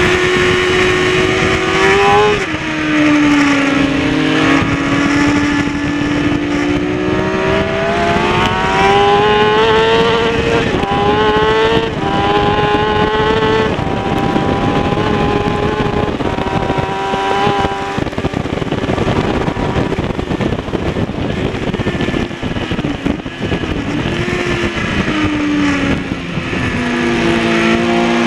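Kawasaki ZX-6R's inline-four engine at racing pace, heard from onboard: the engine note climbs through the revs and drops sharply at each upshift, several times in the first half, then holds steady. In the middle a rushing noise half covers it, and near the end the note falls in steps as the rider shifts down.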